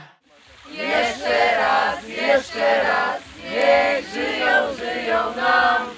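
A group of voices singing together, choir-like, in phrases about a second long, starting after a short pause about half a second in.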